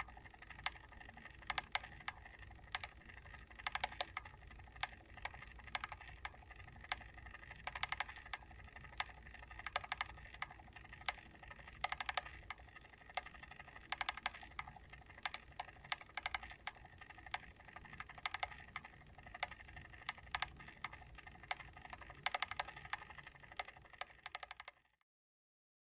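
Timer switch clicking, with sharp clicks over a faint steady tone; the sound stops abruptly near the end.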